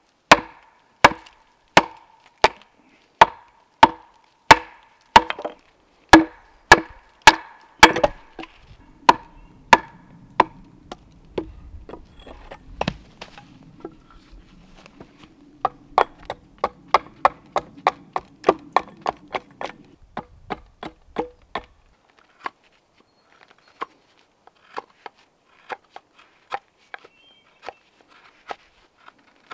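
A tool striking wood in steady, heavy blows about one and a half a second, each with a short ring. Quicker, lighter blows follow, then scattered taps near the end.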